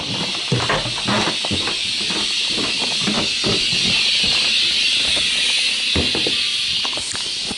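Handling noise from a camera microphone rubbing against knit clothing: a steady scratchy hiss with many scattered bumps and knocks.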